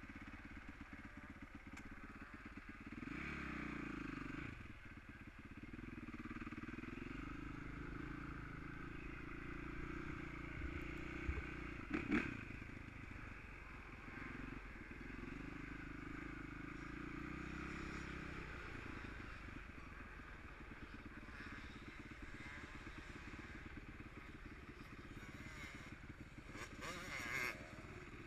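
Motocross bike engine running and revving up and down as it is ridden around a sandy track. Sharp knocks sound about twelve seconds in and again near the end.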